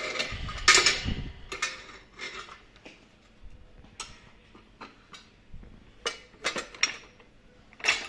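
Parts of a commercial orange juicer knocking and clicking together as they are fitted by hand. A quick run of clatter comes in the first second, then single sharp clicks at intervals, with a cluster of them a little after the middle.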